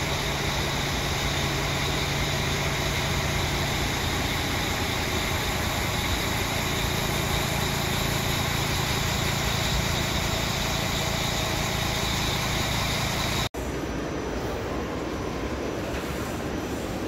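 A Bayerische Regiobahn regional train running at a station platform, a steady rumble and hiss with a low hum. About thirteen seconds in it cuts off abruptly to the quieter, steady background noise of a station concourse.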